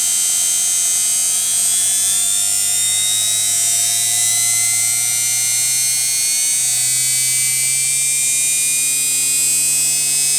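Brushed motor from an automatic washing machine running at high speed, a steady whine whose pitch climbs slowly as it is sped up from about 5000 toward 9000 rpm.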